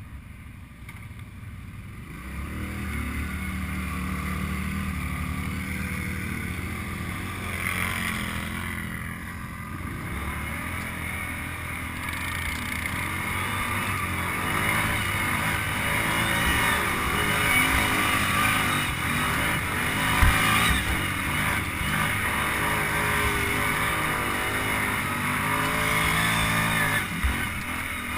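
ATV engine running under load as the four-wheeler is ridden along the trail, getting louder about two seconds in and rising and falling with the throttle. A sharp knock comes about twenty seconds in.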